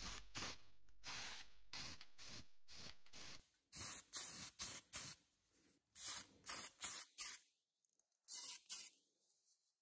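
Paint being sprayed in a rapid series of short hissing bursts, each under half a second. After about three seconds the bursts turn brighter and sharper, coming in groups of four or five with short gaps between.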